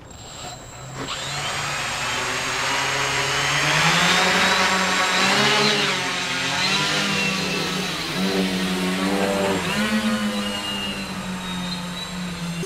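Four brushless Parkzone 480 (960 kV) motors of a homemade H-frame quadcopter spinning their propellers up about a second in, the buzz rising in pitch as it lifts off, then wavering up and down as it hovers and climbs.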